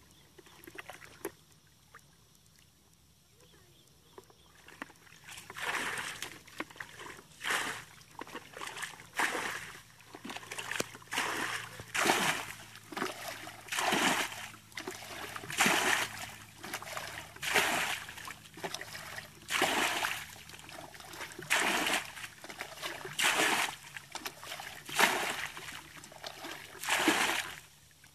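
Muddy ditch water being bailed with a plastic bucket: the bucket is scooped and the water thrown out in a splash about every two seconds, starting about five seconds in and repeating a dozen or more times.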